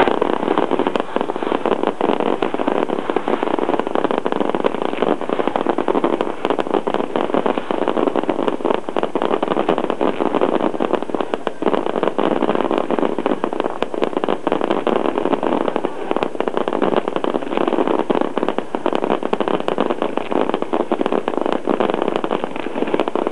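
Fireworks crackling, a dense, continuous rapid popping with no single big bang standing out.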